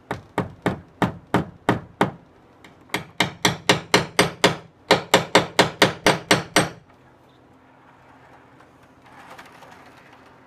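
Claw hammer tapping small model railroad track nails down through the ties into the roadbed: light, quick taps in three runs, about three a second at first, then faster runs of about ten taps each, stopping about seven seconds in.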